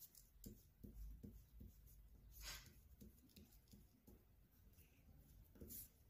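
Faint scratching of a wax crayon colouring on paper, in short irregular strokes, a little louder about two and a half seconds in and again near the end.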